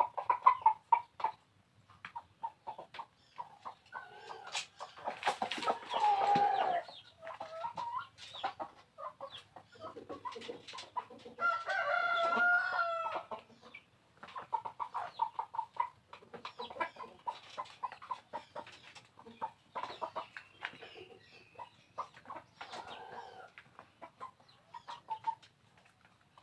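Bangkok-type gamecock roosters clucking in short, quick runs, with two long crows about five seconds in and about twelve seconds in.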